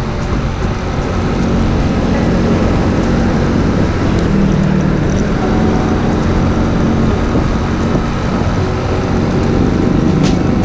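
Small motor scooter engine running steadily under way, with wind and road noise at the rider's camera; the engine note picks up a little about four seconds in.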